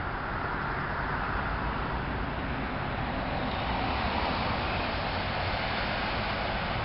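Road traffic noise: a car approaching on the road, its tyre and engine sound growing a little louder in the second half.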